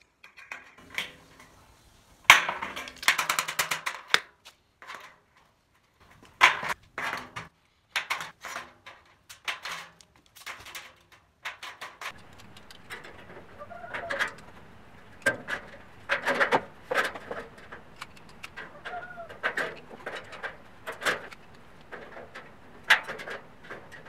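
Hand stud crimper punching and locking galvanized steel studs into their tracks: sharp metallic clicks and clacks in bursts of quick strokes.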